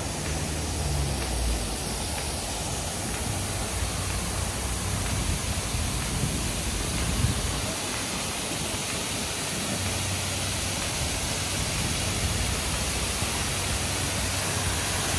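Steady rushing noise of a large waterfall pouring down a rock face into a water channel.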